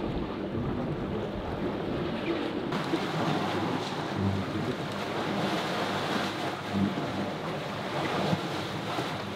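Wind and waves rushing against a catamaran under way in rough water, with wind buffeting the microphone and the boat's engine humming low underneath. The rush turns brighter and fuller about three seconds in.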